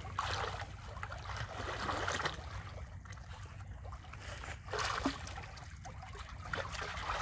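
Pool water sloshing and splashing lightly as a swimmer strokes across the pool, swelling a few times.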